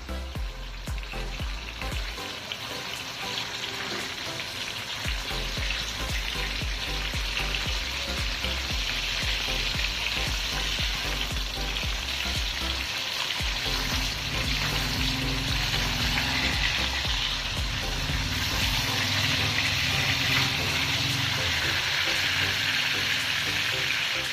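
Pork chops frying in hot oil in a pan: a steady, dense sizzle that grows louder over the first several seconds.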